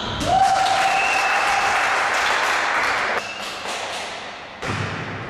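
Spectators applauding and cheering for about three seconds after a volleyball rally, with one held high note over the clapping. Near the end the ball is struck for a serve: one sharp hit.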